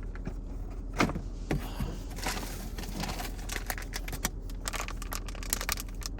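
Tools and their packaging being handled: scattered small clicks and clinks with light rustling, and a sharper knock about a second in.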